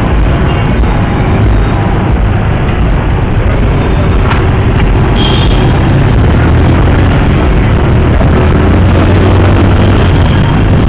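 Boda boda motorcycle taxi riding through city traffic, heard from the passenger seat: a loud, steady rumble of the engine and rushing air, with a brief high tone about five seconds in.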